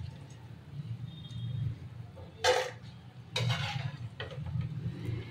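A steel slotted spoon scrapes and knocks against a frying pan while fried paneer pakoras are lifted out of the oil: one sharp clink about halfway through, then a short burst of scraping a second later. A low steady hum runs underneath.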